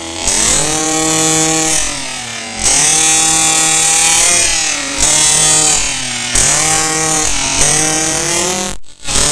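The 26 cc two-stroke engine of a tuned 1:5 scale RC buggy, revved in repeated bursts. About five times, the pitch climbs quickly and holds high, then drops back between throttle pulls. The sound cuts out briefly near the end.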